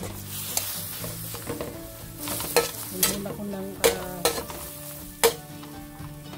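Diced fatty pork sizzling in a hot metal wok as it renders its fat, stirred with a metal spatula that scrapes and knocks against the pan about five times in the middle of the stretch. Quiet background music plays underneath.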